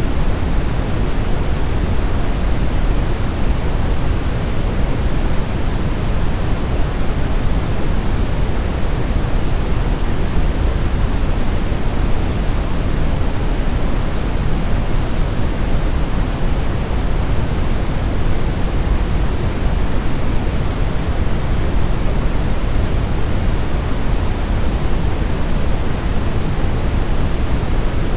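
Steady brown noise: a constant, even rush of noise weighted toward the low end, with no changes or events.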